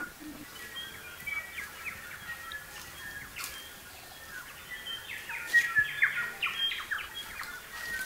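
Native forest birdsong: several birds give overlapping chirps and quick whistled notes. The calls grow busier and louder about five seconds in.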